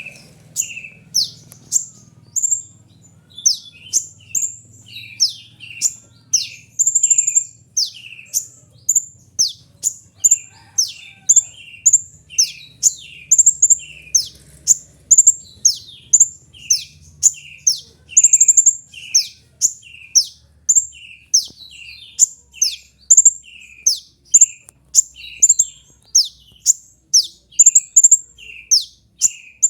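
Kolibri ninja (brown-throated sunbird) calling: sharp, high notes that sweep downward, each followed by a lower note, repeated about twice a second without a pause.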